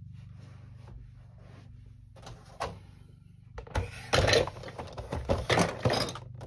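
Hands handling Beyblade toy parts: scattered light clicks, then, from about three and a half seconds in, a loud irregular run of clicking, rattling and rustling that stops shortly before the end. A steady low hum runs underneath.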